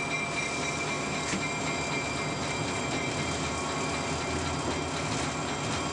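Steady running noise heard inside the cab of a moving EMD F40PH-2 diesel passenger locomotive: engine and wheels on the rails, with no break or change.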